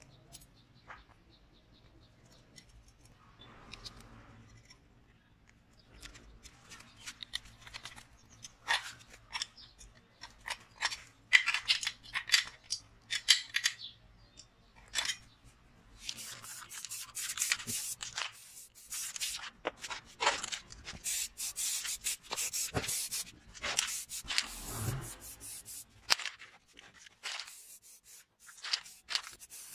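Small metal parts of a Briggs & Stratton lawn mower engine being handled and fitted: scattered clicks and light scrapes of metal on metal. From about halfway come repeated short hissing, rubbing bursts.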